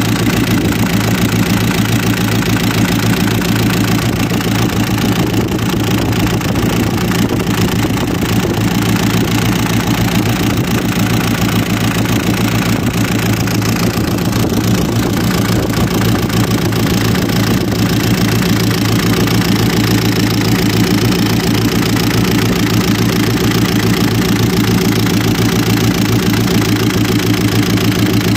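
Hino diesel engine idling steadily, with a fast, even beat of firing strokes.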